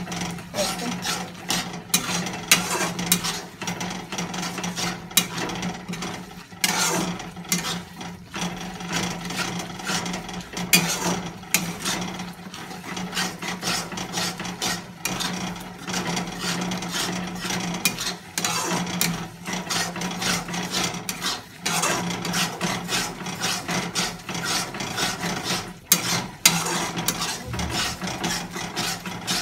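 A spatula scraping and stirring thick masala against the inside of an iron kadhai, a continuous run of quick rasping strokes as the masala is roasted (bhuna), over a steady low hum.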